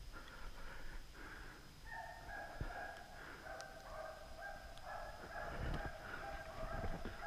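Several hunting dogs baying, short calls following one another without a break and overlapping, as hounds give tongue while driving wild boar. The calls start faintly and become a steady run from about two seconds in, with a few low knocks among them.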